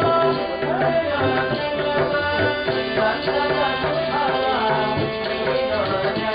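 Live Indian music: a man singing into a microphone with tabla accompaniment and a second hand drum, the drum strokes going steadily under the melody.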